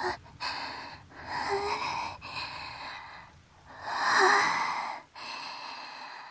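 A young woman's heavy, shaky breathing close to a binaural dummy-head microphone, about five breaths with small catches of voice, the sound of a girl trembling with fright at thunder.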